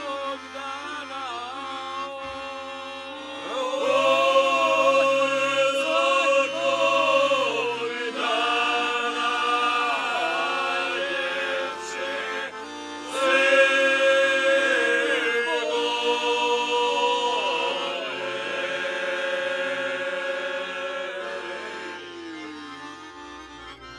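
A group of men singing a folk song together in long held phrases, several voices at once, with piano accordion accompaniment. The last phrase slides down and fades near the end.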